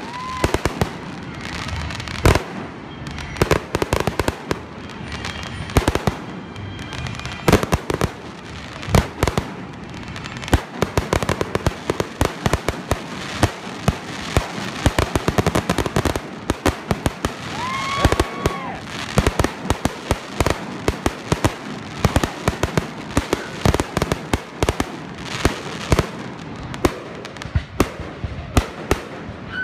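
Fireworks display going off in rapid succession: a dense, irregular barrage of bangs and crackling pops. Brief whistles stand out about a second in and again about eighteen seconds in.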